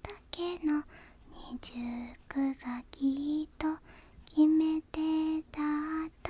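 A single voice singing softly in a hushed, near-whispered way, unaccompanied, holding short notes one after another with brief pauses and small clicks between them.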